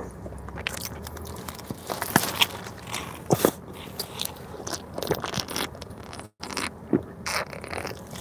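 Close-up chewing and biting of a soft bread roll, mixed with the crinkle and rustle of a plastic bag and paper wrapper being handled. The sound is irregular small clicks and crackles, and it cuts out for an instant about six seconds in.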